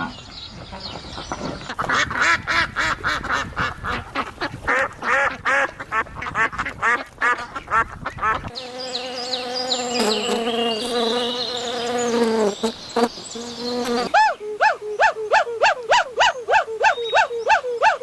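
A sequence of animal sounds. First comes a rapid run of short repeated calls. About halfway through it changes to a steady droning tone for several seconds. It ends with regular short peeping calls, about three a second.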